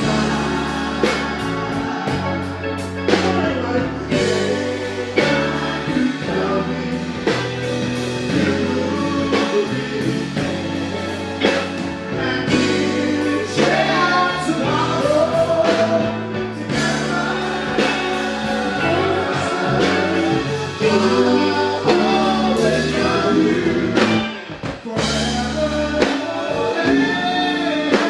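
A live soul-funk band playing with male vocalists singing lead and backing parts into microphones over the band.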